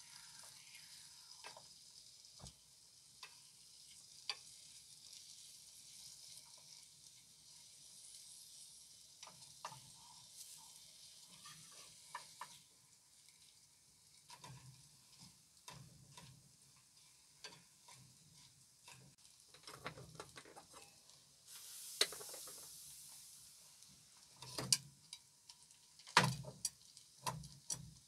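Sausage slices sizzling faintly in an aluminium mess-tin pan, with a wooden spatula scraping and clicking against the pan as they are stirred. A few louder knocks come near the end.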